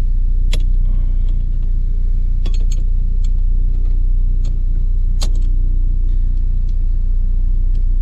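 Steady low hum of the Focus ST's idling engine heard inside the cabin, with several sharp metallic clicks as two combination wrenches tap against each other while locking the reverse lockout and the threaded piece together on the shift lever.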